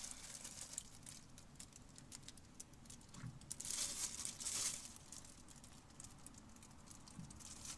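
Crinkling rustles and small clicks from a gloved hand handling the suspension parts, with louder rustles about three and a half and four and a half seconds in.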